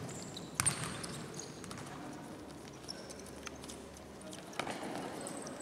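Futsal ball kicked and passed on an indoor court, sharp thuds ringing out in the hall, the loudest about half a second in and another near the end, with short high squeaks of shoes on the court floor.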